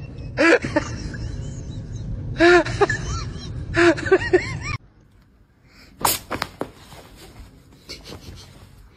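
A sleeping dog with its muzzle in a plastic container makes short squeaky breathing sounds in three bouts, each note sliding up and down in pitch. About five seconds in they stop abruptly, leaving faint rustling and a few light clicks.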